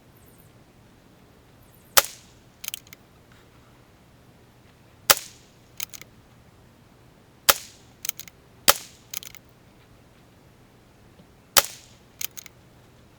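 Five .22 LR rifle shots from a CZ 457 bolt-action rifle, irregularly spaced a second or a few seconds apart, each followed by a few lighter clicks.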